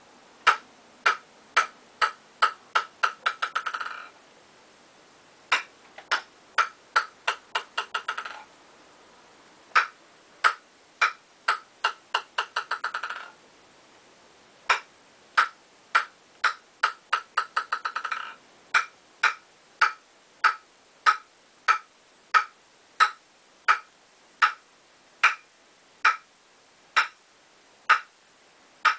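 Celluloid-type table tennis ball bouncing on a bare Nittaku Acoustic five-ply wooden blade, a sharp click at each bounce. Four times it is dropped and the bounces come faster and faster until the ball rattles to rest; after that it is bounced steadily, about one and a half times a second.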